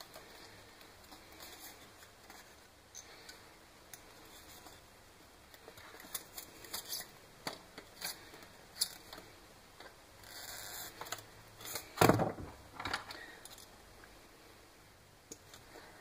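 Hands working a foam model airplane and wire at a wooden workbench: scattered small clicks and rustles, busier from about six seconds in, with one sharp knock on the bench about twelve seconds in.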